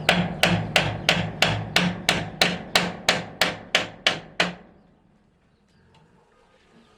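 A hammer striking in a fast, even rhythm, about three blows a second, stopping about four and a half seconds in.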